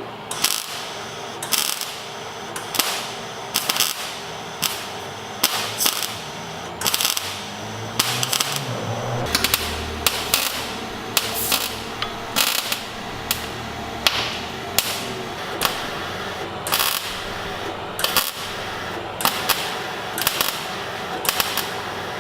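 Hammer tapping on sheet metal while reshaping a car's rear guard, with sharp strikes roughly once a second at uneven intervals over a steady background hum.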